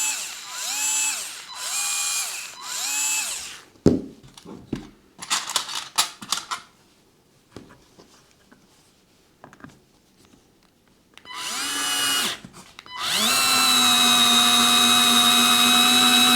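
Parkside PARS 4 A1 4-volt cordless screwdriver motor running in four short pulses, each speeding up and slowing down. Then come a few clicks and rattles, a short run, and a steady five-second run with a high whine.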